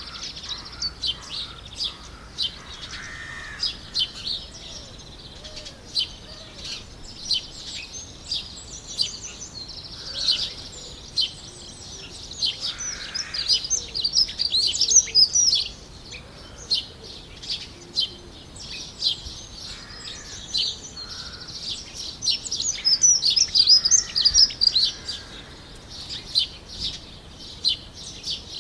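Several wild birds chirping and singing in quick, high overlapping trills over a faint steady hiss, with busier bursts of song in the middle and near the end.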